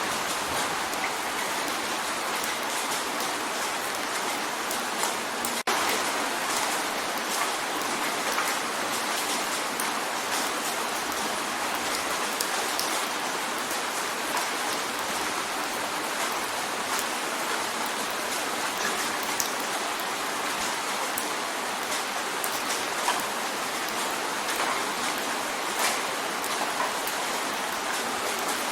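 Steady rain drumming on a window pane: a continuous hiss of rainfall dotted with many small individual drop ticks against the glass.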